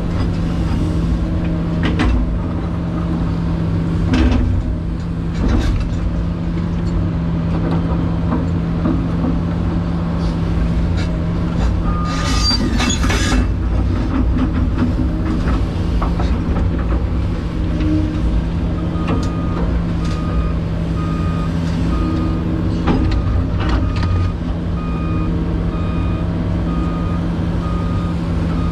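Excavator's diesel engine running steadily under hydraulic load, heard from inside the cab, with clunks and scraping of the bucket digging dirt and rock and a brief harsh scrape near the middle. About two-thirds of the way in, a backup alarm starts beeping about once a second.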